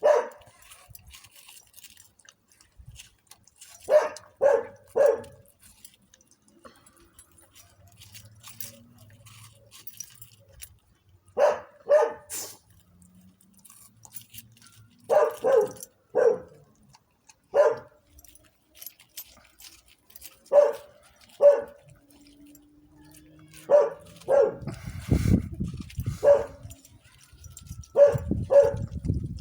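A dog barking in short groups of two or three barks, with pauses of a few seconds between groups. A low rumble comes in under the barks near the end.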